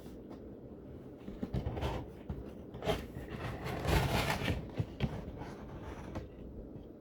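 Cardboard box and plastic packaging tray being handled: scattered scrapes, rustles and light clicks, the loudest a rustle of about half a second roughly four seconds in.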